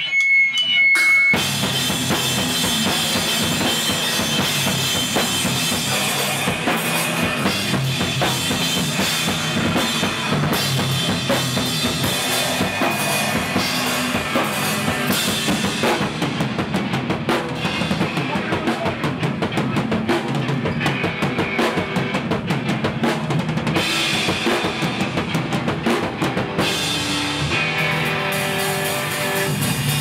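A live emo/hardcore rock band starts playing about a second in, loud and dense, driven by a full drum kit with bass drum, snare and cymbals.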